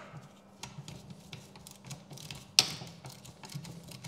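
Hand socket ratchet clicking irregularly as a bolt is run in, with one sharper click about two and a half seconds in.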